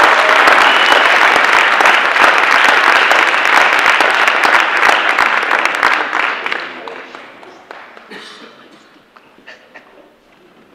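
Audience applauding loudly in a large hall, the clapping dying away about two-thirds of the way through.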